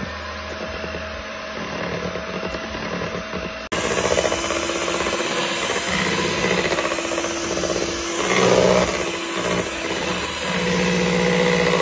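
Electric mixer running at low speed, its beaters working through thick chocolate brownie batter. The steady motor noise jumps louder about four seconds in.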